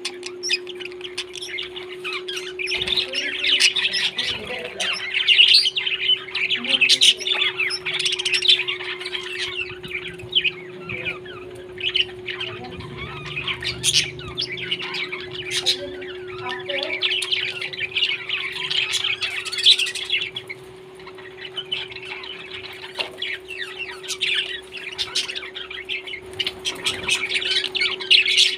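A flock of parrots chattering with dense, overlapping chirps and squawks, over a steady low hum.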